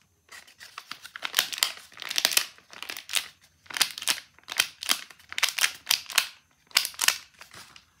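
Paper crinkling and rustling in a quick, irregular run of bursts with a few brief pauses, as a home-made paper fidget packet is handled.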